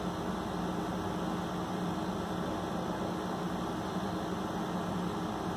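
Steady background hiss with a low, even hum: room tone from running equipment, with no distinct event.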